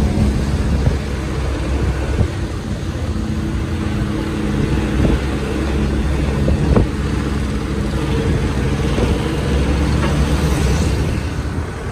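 Heavy truck's diesel engine running steadily with a low drone, with road noise. A brief rising whine comes in near the end.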